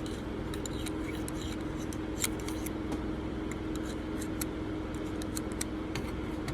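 Steady hum of room fans with a constant tone, and scattered faint light clicks of a small metal tool picking at a lighter.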